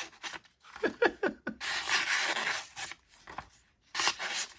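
A folding knife blade (NRiggi Knives Jersey prototype) slicing through sheets of printer paper. One longer cut lasts about a second, from about a second and a half in, amid shorter scratches and paper rustling.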